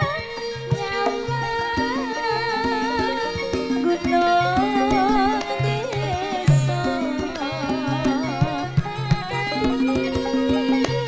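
Javanese gamelan music for tayub: a woman singer's wavering, ornamented melody over sustained metallophone tones and a steady pattern of kendang hand-drum strokes.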